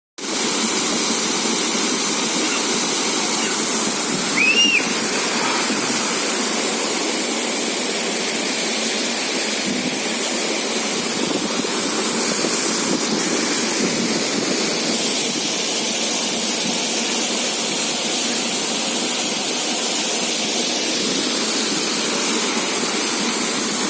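Tembulun waterfall rushing in a steady, loud roar of falling water. A single short high chirp cuts through about four and a half seconds in.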